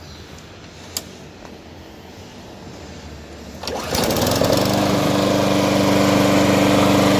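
Lawn mower's small gasoline engine being started: a click about a second in, then near four seconds the engine catches and settles into a steady run.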